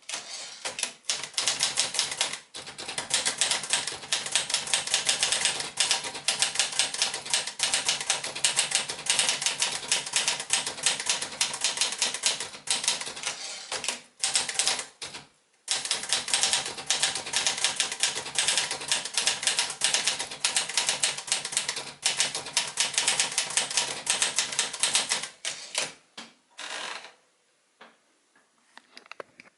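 Metal-bodied Olivetti Lettera 35 manual typewriter being typed on fast, a steady clatter of key strikes. The typing pauses briefly about halfway, then trails off into a few scattered strikes near the end.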